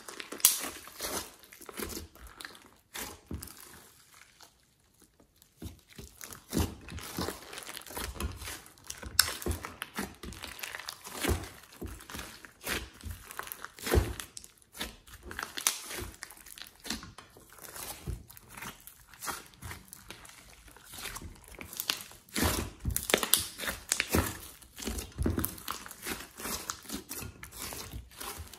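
Hands squeezing and kneading a large mass of glossy slime mixed with clay in a glass dish: irregular squishes and sharp little pops as air is pressed out of it, with a quiet pause about four to six seconds in.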